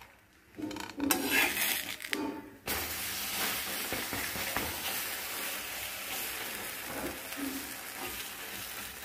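Garlic butter sizzling as a bread sandwich fries on a hot tawa (flat griddle), with a steel spatula scraping and pressing it. The sound starts about half a second in with a louder, uneven rush of sizzling and scraping, then settles into a steady sizzle from about three seconds in.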